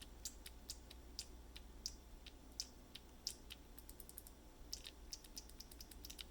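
3D-printed Void Switch keyboard key switch being pressed over and over, giving faint, gentle clicks at an irregular pace, with a quick flurry about five seconds in. The click comes from a small metal bit inside the switch snapping against it.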